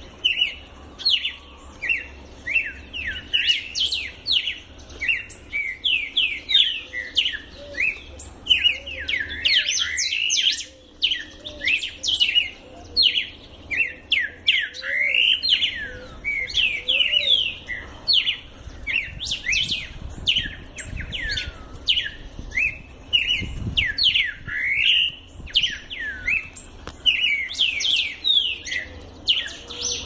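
A caged songbird singing continuously: a fast, chattering run of short chirps that sweep downward in pitch, broken by one brief pause about ten seconds in.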